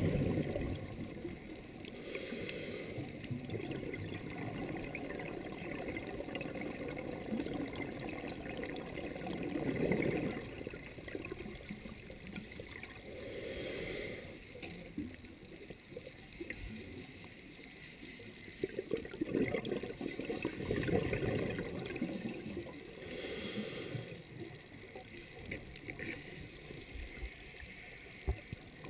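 A scuba diver's regulator breathing, heard underwater: short hisses of inhaled air alternate with bubbling rushes of exhaled air every several seconds.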